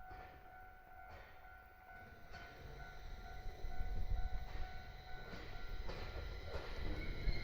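Level crossing alarm sounding steadily while a JR East 701 series electric train approaches. The train's rumble grows louder through the second half.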